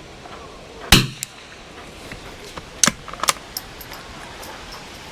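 A single shot from a Kimber 82G bolt-action .22 LR target rifle about a second in, followed by several sharp clicks, the loudest near three seconds in.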